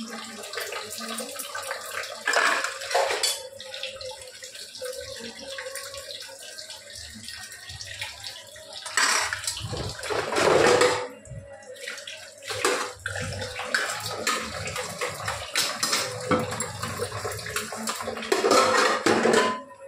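Tap water running into a steel kitchen sink while stainless-steel plates and bowls are rinsed and scrubbed by hand, with frequent clinks and knocks of metal dishware. The splashing and clatter grow louder for a while about nine to eleven seconds in.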